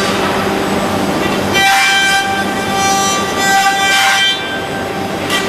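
Industrial robot cell running for cutting and finishing a plastic car dashboard, with a steady machine hum. About a second and a half in, a high steady whine with overtones from the robot's cutting tool starts, framed by swells of hiss, and stops just after four seconds.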